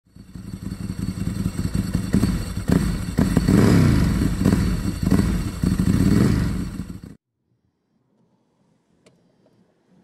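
Motorcycle engine revving, its pitch rising and falling repeatedly, then cutting off suddenly about seven seconds in, followed by near silence with a few faint ticks.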